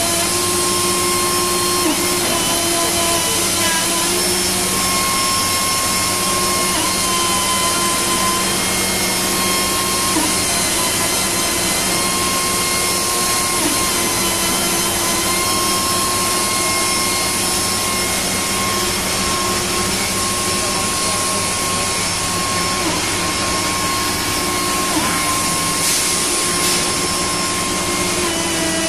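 High-speed router spindle on a Panasonic six-axis robot arm, running with a steady whine while it cuts and trims moulded plastic; the pitch dips briefly every few seconds as the cutter loads up.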